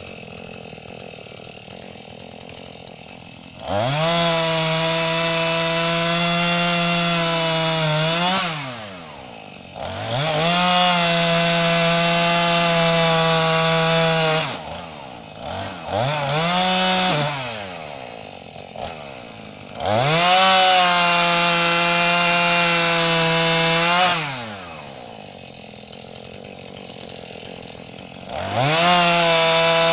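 Two-stroke chainsaw cutting an oak log into blocks: it idles, then runs at full throttle through a cut for about four to five seconds before dropping back to idle, three times over, with a short rev in between, and a fourth cut begins near the end.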